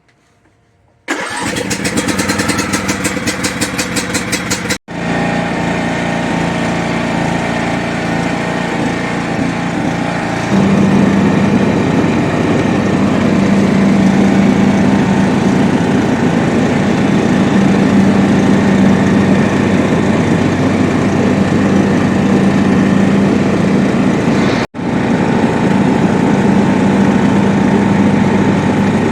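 Riding lawnmower engine cranking on its electric starter in a rapid rhythmic churn for about three seconds, then catching and running steadily. About ten seconds in it gets louder as it is throttled up, and it drops out briefly twice.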